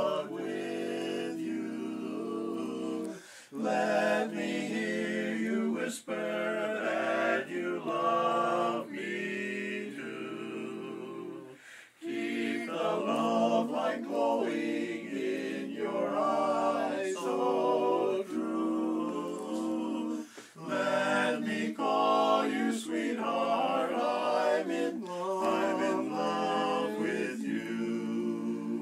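Barbershop quartet of men singing a cappella in close harmony, holding chords with short pauses between phrases.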